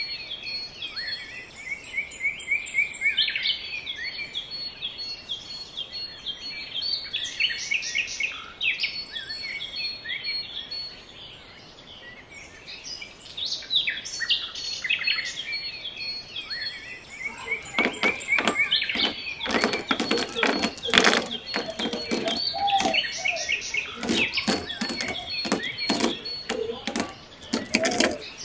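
Small birds chirping and twittering. About two-thirds of the way in, a rapid run of sharp clicks joins them: small pebbles clattering as they are dropped into a hard plastic basin.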